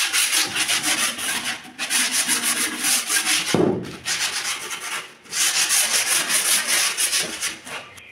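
Edge of a plywood try square being rubbed down by hand with an abrasive, rapid back-and-forth scraping strokes taking off the protruding edge. The strokes come in several runs with short pauses, with a dull knock about three and a half seconds in, and stop near the end.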